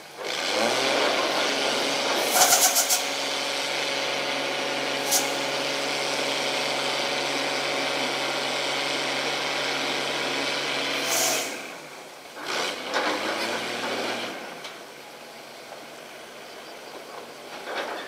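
Heavy engine running steadily at an even pitch, with short hissing clicks a couple of seconds in. It drops away about eleven seconds in, then comes back briefly for a couple of seconds.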